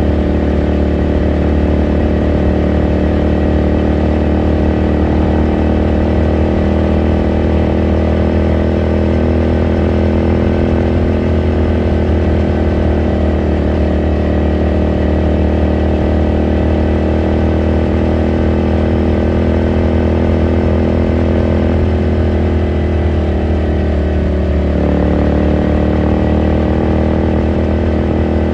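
Exhaust of a Ducati Scrambler Sixty2's air-cooled V-twin, running steadily under way, with a brief dip and change in engine pitch near the end.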